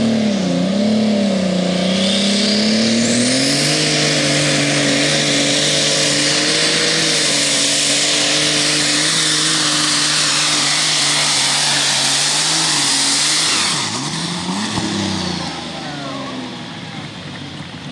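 Turbocharged super stock pulling tractor engine running flat out under load, with a high whine rising about two to four seconds in. About fourteen seconds in the engine comes off throttle and winds down, the sound falling away.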